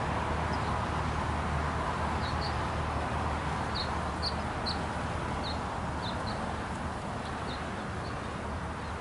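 Steady hum of honeybees around an open hive, with a small bird chirping in short high notes through the middle.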